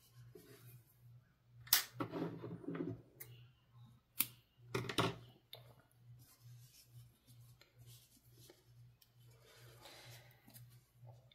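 A tapestry needle and acrylic yarn being worked through crochet stitches to weave in a yarn end: soft rustling of yarn and fingers, with a few sharp clicks around two and five seconds in.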